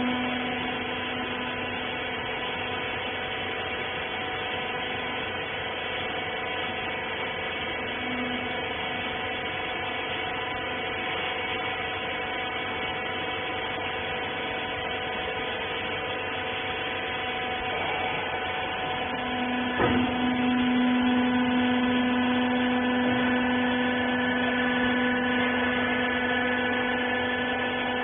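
Hydraulic power unit of a twin-ram rag baler running with a steady hum. About twenty seconds in there is a knock, and the hum gets louder.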